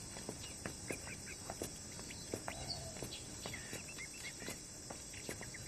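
Outdoor ambience: scattered short bird chirps and calls over a steady high insect drone.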